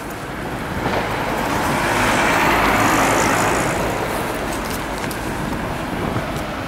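Street traffic with a vehicle driving past, its noise swelling to a peak near the middle and then fading away.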